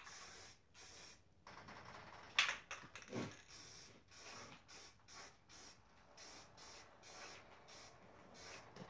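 Aerosol spray-paint can hissing in short on-and-off bursts as it is sprayed onto a grill, with a couple of knocks about two and a half to three seconds in.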